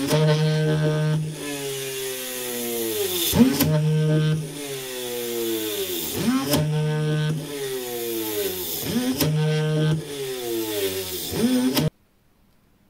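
Small 24-volt DC motor of a homemade mini drill press running, its pitch sinking steeply and climbing back every two to three seconds with steady stretches between. It cuts off suddenly near the end.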